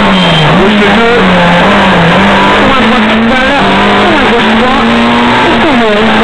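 Peugeot 106 S16 rally car's 1.6-litre 16-valve four-cylinder engine driven hard, heard loud from inside the cabin, its pitch climbing and dropping back as it revs through gear changes.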